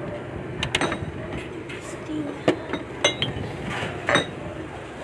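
Drink bottles in a refrigerator clinking and knocking against each other as one is pulled out: several sharp clinks with a short ring.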